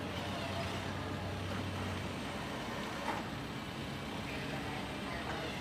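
A 2012 CAT TH407 telehandler's diesel engine running steadily. Its deepest hum drops away about two seconds in, and there is a light click a second later.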